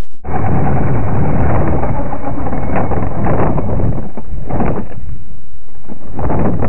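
Exceed RC Sunfire buggy heard through its onboard camera's microphone: a very loud, muffled, noisy rumble of motor, drivetrain and chassis rattle as it drives over grass. A few sharper knocks come as the buggy bounces and tumbles.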